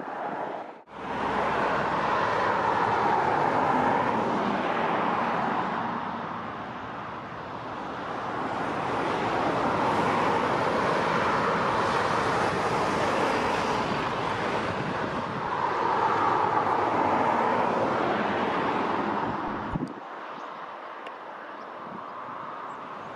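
Airbus A330-200 twin-jet engines on final approach and landing: a loud, steady jet noise that swells and eases in waves, mixed with wind rumbling on the microphone. The deep rumble drops away suddenly near the end.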